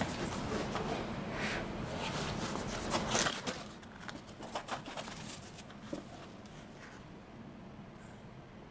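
Cardboard box being handled and its lid opened: scraping and rustling of the cardboard, loudest about three seconds in, then a few light knocks as the box is handled, trailing off to quiet room tone.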